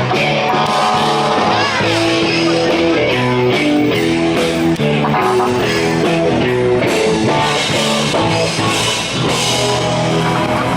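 Loud rock music with guitar and drums over a steady beat.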